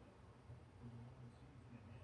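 Near silence, with a faint steady low rumble.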